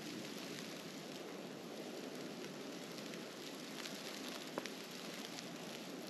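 Steady hiss of a snowstorm, with scattered faint ticks and one sharper click about four and a half seconds in.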